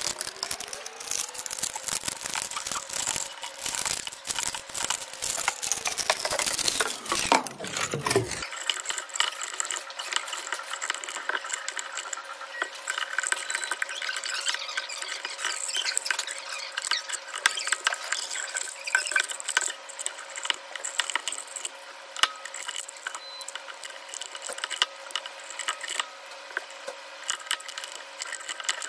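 Pliers snapping and cracking 3D-printed plastic support material off a print, many sharp clicks of plastic breaking in quick, irregular succession. Under them runs a steady tone that rises at the start and glides down about eight seconds in.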